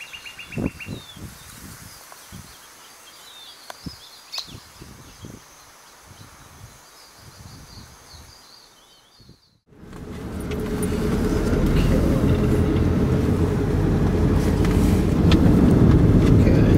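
Small birds chirping and trilling faintly, with a few soft knocks. About ten seconds in the sound cuts to the steady, loud noise of a vehicle on the move, building over a couple of seconds and then holding.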